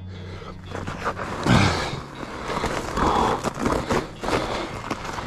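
A cyclist breathing hard with effort while pedalling off again on a fat bike, with a loud breathy exhale about every second and a half. Rough rolling and wind noise sits underneath.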